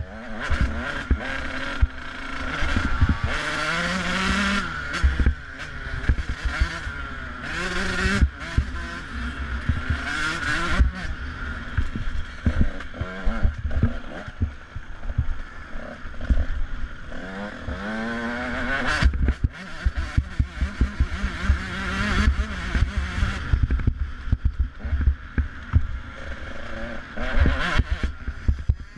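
Off-road motorcycle engine ridden hard, its revs climbing and dropping again and again through gear changes, with wind buffeting the microphone and knocks from the bumpy track.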